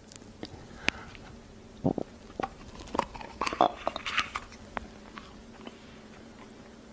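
A person chewing something hard in the mouth: a string of sharp clicks and crunches from about two seconds in to about four and a half seconds in, over a faint steady hum.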